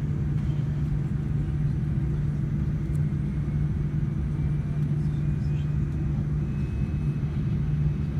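Cabin noise of a Boeing 787-9 taxiing: a steady low rumble from the idling jet engines and the airliner rolling on the taxiway, with a faint high whine coming in about halfway through.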